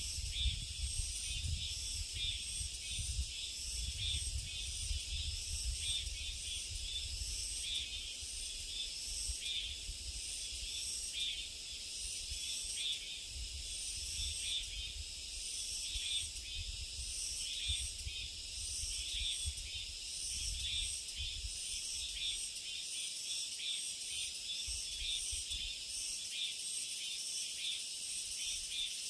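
Dense chorus of summer insects, a steady high shrill with a fast pulsing texture layered at several pitches. A low rumble sits under it and dies away about three quarters of the way through.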